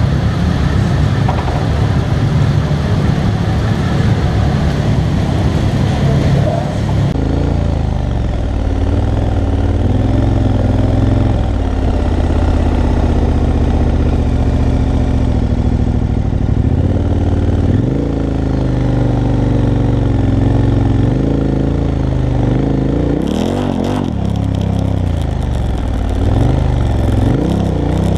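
KTM 1290 Super Adventure S V-twin motorcycle engine running at low speed, its note rising and falling with throttle and gear changes. For the first seven seconds or so it is mixed with other motorcycle engines in an echoing garage shed.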